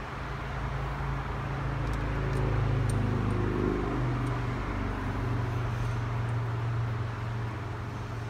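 Steady low mechanical hum of shop machinery, swelling for a few seconds in the middle, with a few faint light clicks of steering wheel bolts being started by hand at the hub.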